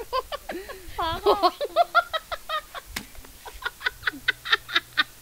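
Several people laughing hard: high, wavering giggles, then a run of quick ha-ha bursts, about five a second, in the second half. A single sharp tap about three seconds in.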